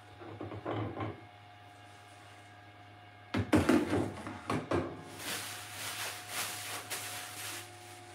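Hard plastic parts of a resin wash station, the clear tank and its dipping basket, knocking and clattering as they are handled: a few light knocks at the start, a louder burst of clatter about three seconds in, then a few seconds of rustling.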